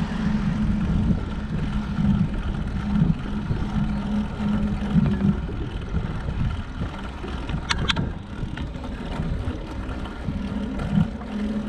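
Steady low rumble of wind on the microphone and road noise during a bicycle ride, with two short sharp clicks close together about eight seconds in.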